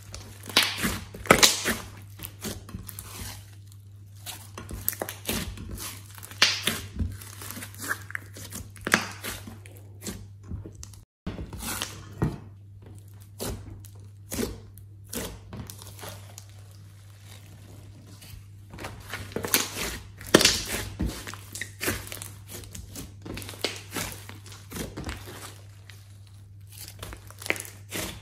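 Hands squeezing, pressing and stretching a large mass of thick, glossy slime: wet squishing with irregular crackles and pops as the slime folds and stretches. A faint steady low hum sits underneath, and the sound cuts out for a moment about eleven seconds in.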